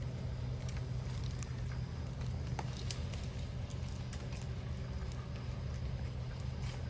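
A vehicle engine idling with a steady low hum, with light scattered clicks and taps over it.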